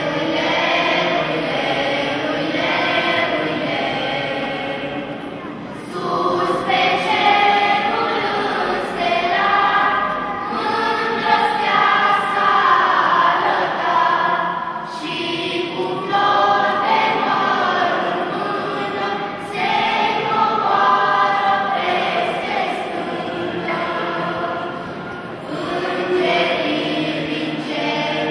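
Children's choir singing a Romanian Christmas carol (colind), held sung phrases separated by brief pauses for breath.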